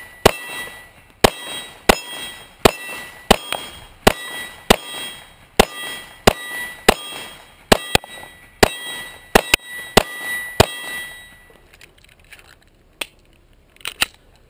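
Glock 19 9mm pistol fired in a steady string of about sixteen shots, a little more than one a second, with a metallic ringing hanging between shots from steel targets being hit. The shooting stops about two-thirds of the way through, followed by a few faint clicks near the end.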